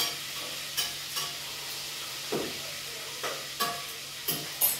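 Food frying with a steady sizzle in a pan on a wood-fired stove, while a utensil scrapes and knocks against the pan as it is stirred, about eight times at uneven intervals; the loudest knock comes near the end.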